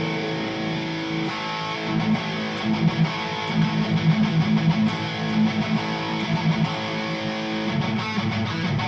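Harley Benton SC-500 electric guitar, played through the Overloud TH3 amp simulator, strumming chords in a steady rhythm.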